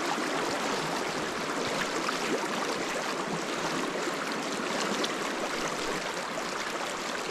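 Fast-flowing freestone stream rushing over rocks in a shallow riffle, a steady, even rush of water.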